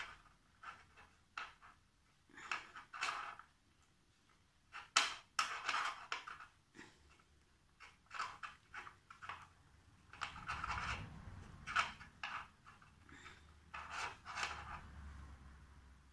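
Hands kneading and rolling a lump of polymer clay: irregular soft rubbing and handling sounds, with a few small clicks.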